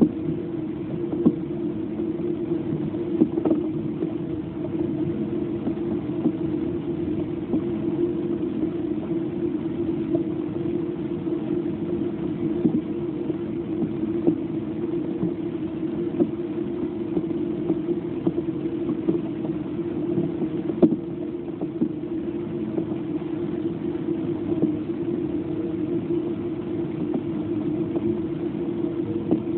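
Heavy rain pouring in a thunderstorm with wind moving the trees: a steady low roar with a few scattered sharp ticks.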